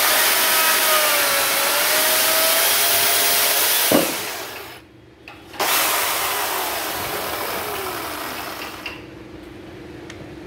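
Makita electric chainsaw running and cutting into a wooden log, its motor whine wavering under load. About four seconds in it is released and quickly winds down, then runs up again abruptly and coasts down with a falling whine.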